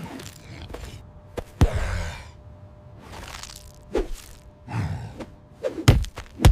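A series of sharp thuds and whooshing swishes, sound effects of a ball game in play, with the loudest thuds coming close together near the end.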